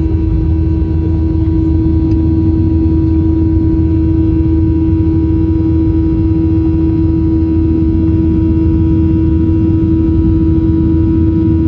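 Boeing 737-800's CFM56 jet engines heard from inside the passenger cabin, running steadily: a loud, even rumble with one strong constant hum and fainter steady tones above it.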